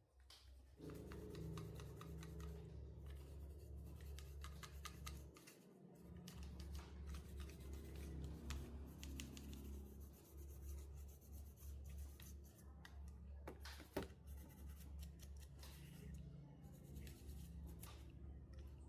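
Quiet hand-work sounds: many small scratches, scrapes and clicks over a low steady hum that starts about a second in and drops out briefly midway, with one sharper click about two-thirds of the way through.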